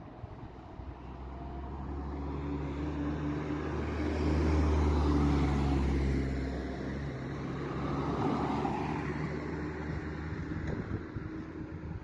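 A road vehicle's engine and tyres humming, growing louder to a peak in the middle, easing off, swelling briefly again and fading near the end.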